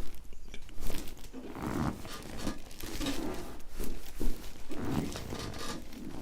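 Patient breathing heavily in and out during a mid-thoracic chiropractic adjustment, with a short sharp pop about four seconds in as the thrust is given.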